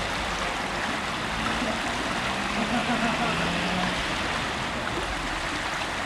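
Shallow stream flowing over stones and ripples past a bridge pier, a steady even rush of water.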